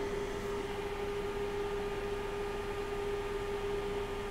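Steady background hum holding one pitch over a constant hiss.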